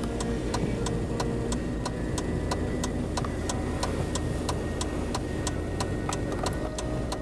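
Mitsubishi Pajero V6 3000's engine running steadily at low revs as the vehicle crawls up a grassy slope. A regular ticking of about three clicks a second runs over it.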